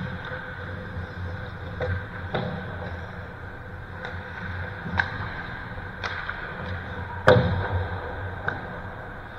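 Pickup ice hockey play: a string of sharp knocks of puck and sticks, six or so spaced irregularly, the loudest about seven seconds in with a short ringing tail, over a steady hum of the rink.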